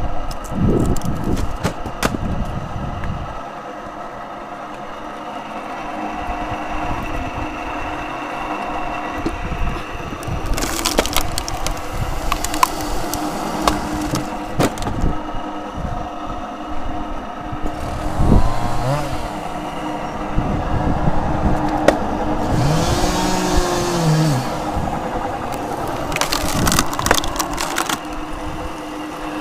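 Wood cracking and splintering again and again as logs split apart, over a steady engine hum.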